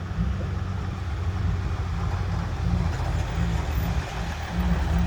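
Dump truck's diesel engine running under load as the truck pulls up out of the pit in a low gear: a steady, low drone with a pulsing beat.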